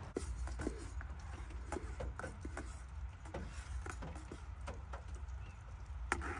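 Scattered light clicks and taps, irregular and several a second at times, over a low steady rumble.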